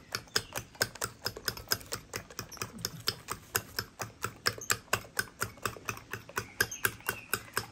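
Fork beating eggs in a ceramic plate, its tines clicking against the plate in a fast, even rhythm of about five strikes a second.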